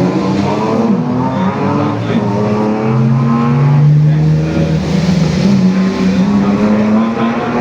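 BMW E46 engine revving hard under racing load, its pitch climbing and dropping several times as it is driven through the gears.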